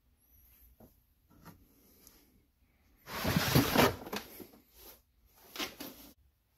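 Handling noises: a few light clicks and knocks, with a louder rustling, scraping noise lasting about a second, about three seconds in.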